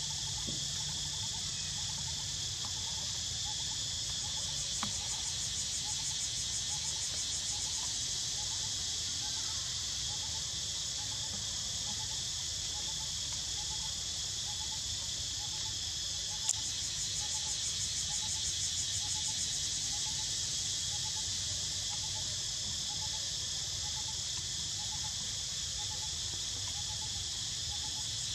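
Steady high-pitched insect chorus, with a faint low chirp repeating about twice a second and one sharp click a little past halfway.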